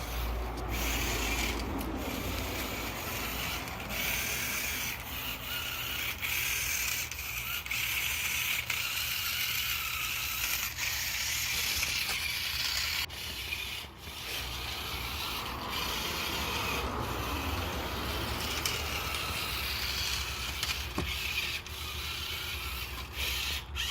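Cheap toy RC car's small electric motor and plastic gears whirring and grinding steadily as it drives over rough ground, with scattered clicks.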